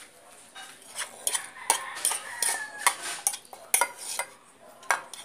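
Metal fork clinking and scraping against a ceramic bowl as noodles are twirled and scooped, in irregular clicks.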